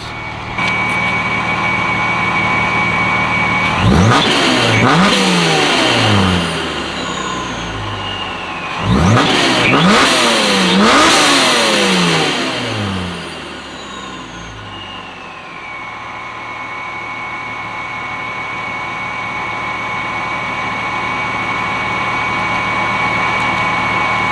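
Supercharged Dodge Challenger V6 with catless downpipes and an X-pipe, idling with a steady supercharger whine, then blipped hard twice, the second time with a double rev, the revs falling away each time as the throttle snaps shut so the supercharger's blow-off valve vents. It settles back to idle with the whine holding steady.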